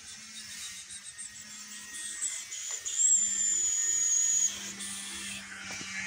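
Alexandrine parakeet giving a long, high, thin whistle that falls slightly in pitch, from about two seconds in until shortly before the end, over a steady low hum.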